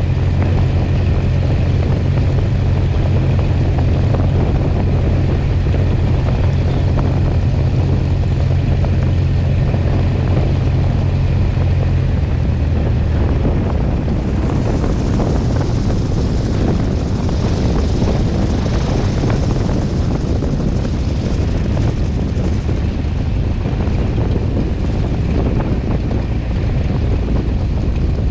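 Cessna 177B Cardinal's four-cylinder Lycoming engine and propeller running at low power while the plane rolls out after landing and taxies. The low drone changes about twelve seconds in, and a hiss rises for several seconds in the middle.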